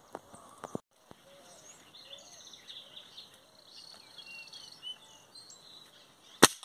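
Wild birds chirping and trilling in the trees, then a single sharp air-rifle shot near the end, fired at a dove and dropping it outright.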